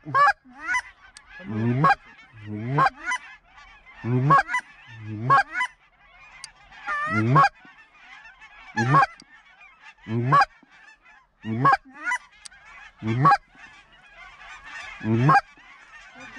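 Hand-blown goose calls honking at a flock, a loud call about every second and a half, each sweeping up sharply in pitch. Many geese honk faintly in the background.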